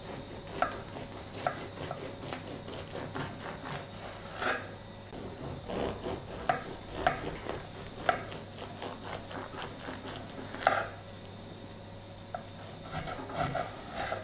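A knife sawing through the crusty crust of a stuffed dark loaf on a wooden cutting board: a string of rasping, crackling strokes, each slice ending as the blade meets the board.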